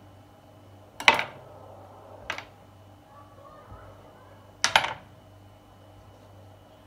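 Knife cutting through a log of soft pizza dough and knocking on the silicone pastry mat beneath. There are three sharp knocks: the loudest about a second in, a lighter one about a second later, and a quick double knock a little over two seconds after that.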